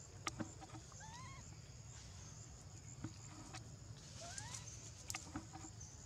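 Newborn macaque giving a few faint, short, high-pitched whimpering coos, each rising or arching in pitch, crying for its mother, with a few light ticks of rustling among them.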